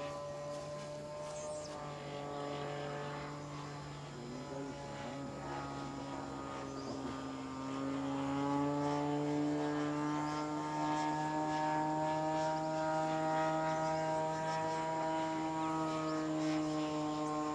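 Model airplane's propeller engine running in flight, a steady buzzing note that drifts a little in pitch and grows louder about halfway through as the plane comes closer.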